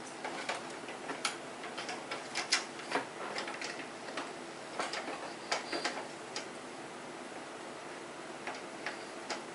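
Light, irregular clicks and taps of a SATA cable's plastic connector being handled and fitted into a drive's socket, thick for the first six seconds or so, then only a few near the end.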